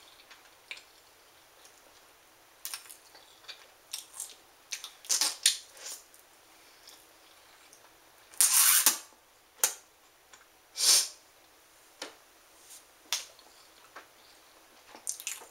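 Mouth noises from chewing a mouthful of marshmallows: scattered wet clicks and smacks, with two louder breathy puffs a little past halfway.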